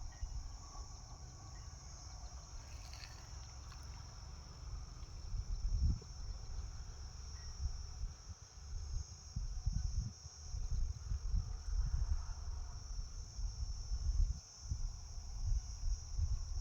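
Steady high-pitched drone of insects, with irregular low rumbling underneath.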